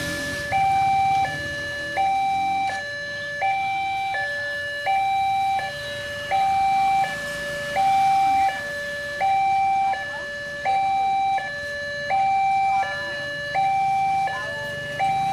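Railway level-crossing warning alarm sounding a two-tone electronic ding-dong, a higher and a lower tone, each held about three-quarters of a second and repeating evenly. It warns that a train is approaching and the barriers are down.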